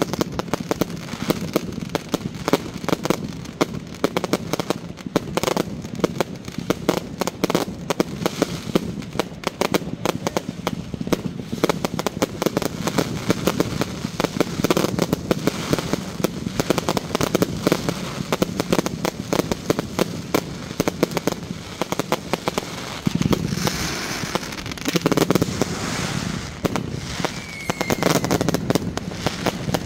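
Fireworks going off in quick succession: a continuous, rapid crackle of sharp pops and bangs, with a few heavier bursts more than twenty seconds in and a brief whistle near the end.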